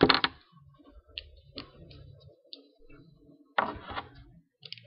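Light ticks and clicks from handling wooden popsicle sticks and a marker at close range, with a louder rustling clatter about three and a half seconds in.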